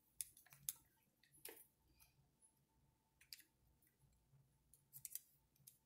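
Near silence broken by scattered faint clicks and light taps: small parts of an RC truck's front suspension being handled and fitted back together, with a quick cluster of clicks about five seconds in.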